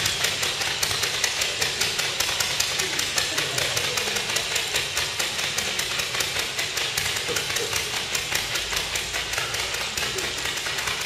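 Pyrotechnic fountains spraying sparks: a steady hiss overlaid by a fast, even run of sharp pops, several a second.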